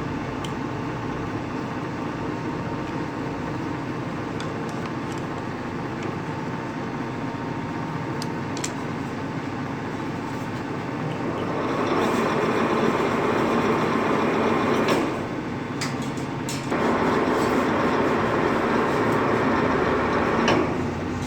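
Lathe running steadily while it winds wire into a coil spring for a heating element. The machine noise grows louder about halfway through, dips briefly, then picks up again, with a few light clicks.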